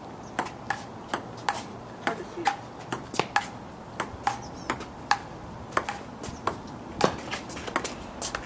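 Table tennis rally: the celluloid ping-pong ball clicks sharply off paddles and the tabletop in turn. The clicks come about two to three a second in an even back-and-forth rhythm.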